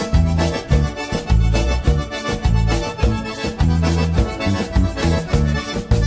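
Instrumental passage of a sertanejo gospel song: accordion leading over bass notes and a steady drum beat.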